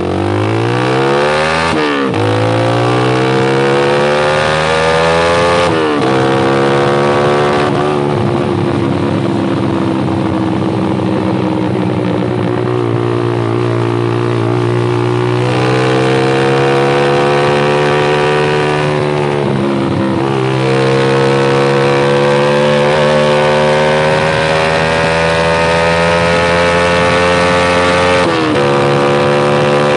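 Honda CS1's 125 cc single-cylinder four-stroke engine running through a Proliner header and Lone Rider silencer with full baffle. Its pitch climbs, drops back sharply about six times, and holds nearly steady for long stretches in between.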